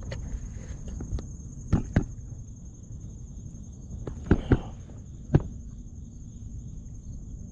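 Twigs and branches of a shrub being pulled and handled, giving several sharp snaps and clicks: two about two seconds in and a cluster near the middle. A steady high insect trill runs underneath.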